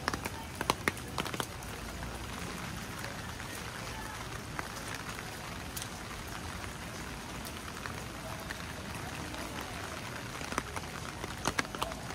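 Steady rain falling, with sharp taps standing out a few times in the first second or so, once mid-way and again near the end.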